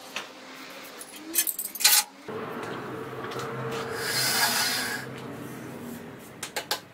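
Kirchner Leipzig cast iron bandsaw spun by hand, with no motor fitted: the wheels and blade run with a whirring rush that swells and then fades as the saw coasts. A few sharp clicks and knocks come before it and again near the end.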